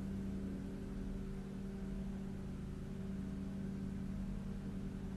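A steady low mechanical hum, one low tone with fainter higher tones, holding level throughout with no clicks or knocks.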